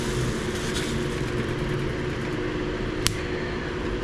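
Electric fan running steadily with a low motor hum; a single sharp click about three seconds in.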